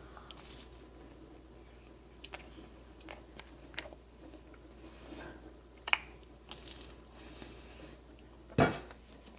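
A person eating a warm Hot Pocket close to the microphone: scattered quiet bites and chewing clicks, with a louder short knock near the end.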